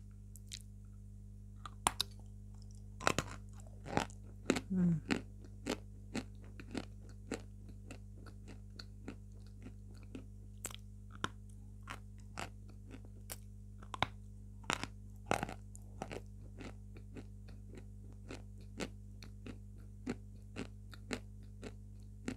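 A lump of Znamensky chalk being bitten and chewed: a long run of dry, sharp crunches, irregular in pace. The louder bites come in the first few seconds and again about fifteen seconds in.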